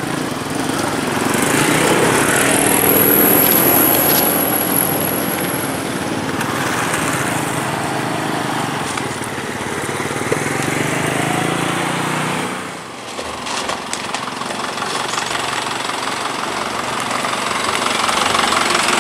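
Motor vehicle engines running and passing over the crossing, a dense steady engine noise with a thin high whine for a few seconds near the start. The sound drops briefly about two-thirds of the way through, then the vehicle noise picks up again.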